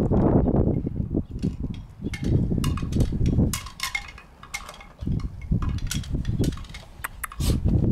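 Gusts of wind buffeting the microphone, coming and going in loud low rumbles, with scattered light high-pitched tinkling clicks.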